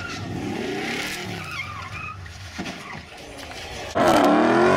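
Car engines revving and tyres squealing on the road. About four seconds in it jumps to a much louder, wavering tyre screech and engine revving as a Dodge Charger spins its rear wheels in a smoky burnout.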